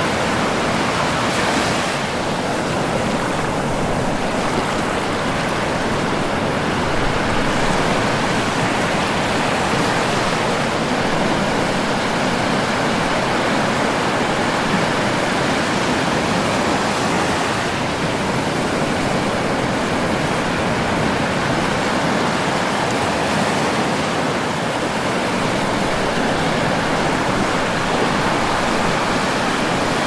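Ocean surf breaking: a steady rushing wash of waves and foam, with no single crash standing out.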